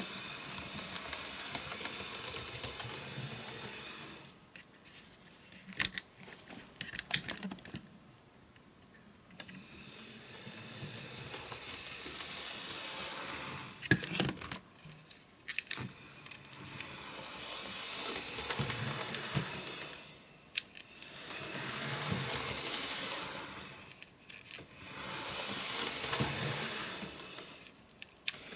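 OO gauge Sonic Models A5 tank locomotive running round a small oval of model track: the whir of its motor and the rumble of its wheels on the rails grow louder and fade again each time it passes, about five times. Sharp clicks come as the wheels cross rail joints or points.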